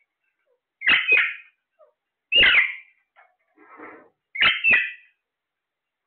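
Caged Alexandrine parakeets calling: a loud double call about a second in, a single loud call a moment later, and another double call near the end, with a softer, lower call in between.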